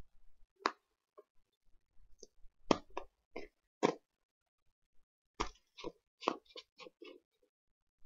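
Small painted wooden matryoshka dolls being opened, stacked and fitted back together by hand: irregular light wooden clicks and knocks, with a quick run of them from about five and a half seconds in.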